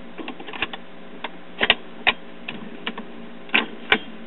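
1965 Admiral record changer cycling to drop a 45 from the spindle adapter: irregular clicks and clunks from the changer mechanism, the loudest a little under two seconds in and near the end, over a steady low hum from the running turntable.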